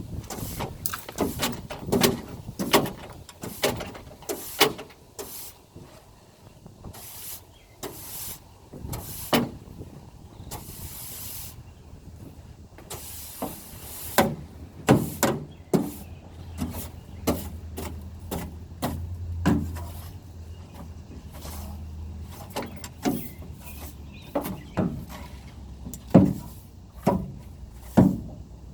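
Irregular knocks, thuds and clatter of trash and debris being pulled out of a pickup bed, with a couple of short hisses about a third of the way in and a low steady hum joining about halfway.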